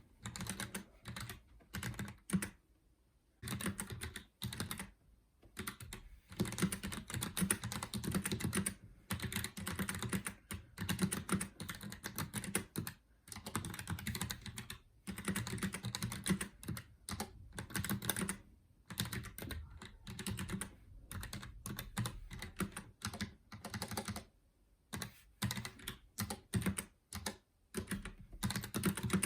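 Roccat Vulcan 120 AIMO mechanical gaming keyboard being typed on in quick runs of keystrokes, clacking, with a few short pauses between runs.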